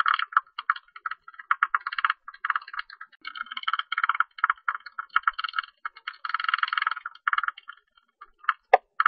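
Tube-nosed bat calling: rapid runs of dry clicks in bursts of a second or so, with short gaps between them and a brief lull near the end.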